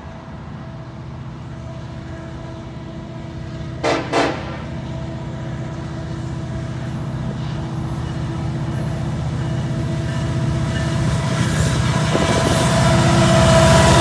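Air horn of an approaching BNSF EMD SD70ACe diesel locomotive sounding a long multi-tone blast, over the rumble of the locomotives growing steadily louder as they close in. The horn fades briefly near the end, then sounds again louder and dropping slightly in pitch as the engines pass. Two short sharp noises about four seconds in.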